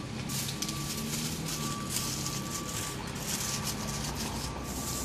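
Aluminium foil and a plastic bag crinkling as tacos are wrapped for takeaway, over a steady low motor hum of vehicle traffic with a faint high whine.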